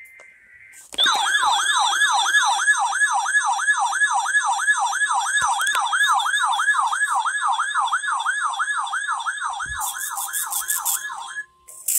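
Electronic wailing siren tone used as an emergency alert attention signal, its pitch sweeping up and down rapidly, about three times a second. It is preceded by a short faint beep. A steady tone joins near the end before the wail cuts off.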